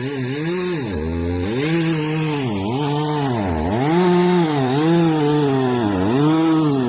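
Petrol chainsaw running at full throttle and cutting into an ash trunk, its engine note repeatedly sagging and climbing back, about once a second, as the chain bites into the wood.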